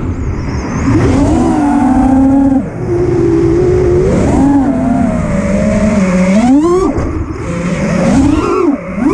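Motors of a 5-inch FPV freestyle quadcopter (Lumenier 2407 2500kv motors with GemFan tri-blade props) whining, the pitch rising and falling with each change of throttle and rising sharply about six and a half seconds in, over wind rush on the onboard camera's microphone.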